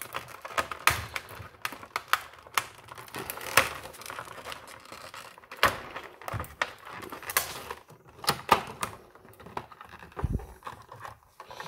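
Clear plastic packaging crinkling and rustling as a power bank is handled inside it, with many irregular sharp clicks and taps.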